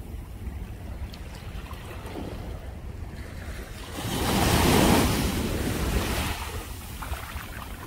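Sea wave washing in over shallow surf and swirling around a wader's legs, swelling about four seconds in and then fading away. A steady low rumble of wind on the microphone runs underneath.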